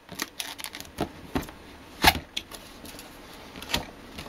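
Cardboard box of a CPU cooler being handled and opened by hand: a run of irregular taps, scrapes and rustles of cardboard, the sharpest about two seconds in.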